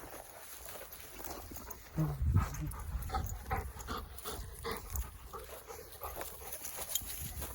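Dogs out searching for shed antlers, heard as a run of short repeated sounds of about two a second. A low rumble about two seconds in starts the run.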